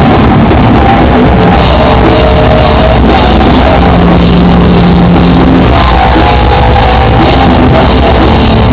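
Rock jam on guitar and drum kit, played loud and recorded with poor, overloaded sound quality and no top end. Held guitar notes ring over the steady drumming.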